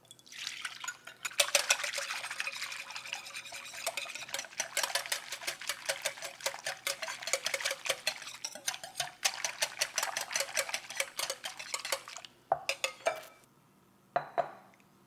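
Wire whisk beating a thin egg and lemon juice mixture in a glass bowl, the wires clicking rapidly against the glass, after a brief pour of the liquid into the bowl. The whisking stops about twelve seconds in, followed by a few last taps.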